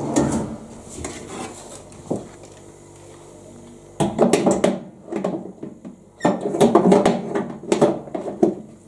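Metal baking tray being slid into an oven, knocking and scraping against the oven's shelf rails in bouts of clatter, with a quieter stretch in the middle.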